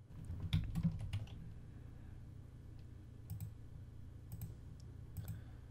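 Computer keyboard keys and mouse buttons clicking: a quick cluster of taps in the first second or so, then double clicks spaced about a second apart, over a faint steady low hum.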